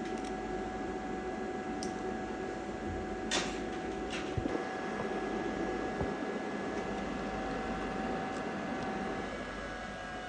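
Steady fan-like machine hum with a few constant tones, easing slightly near the end, with several short clicks and scrapes from parts being handled about two to six seconds in.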